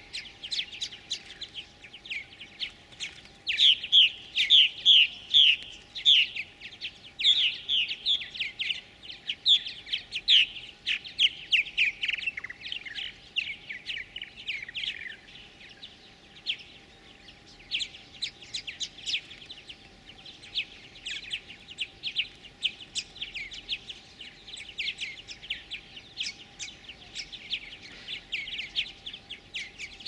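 Purple martins calling at a gourd nest: many short, high chirps in quick runs, loudest from about four to twelve seconds in, typical of nestlings begging to be fed.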